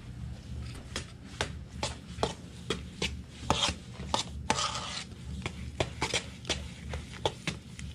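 Spoon stirring sugar into a bowl of ground raw cranberry relish, knocking against the side of the bowl about two to three times a second, with a wet scraping between the knocks.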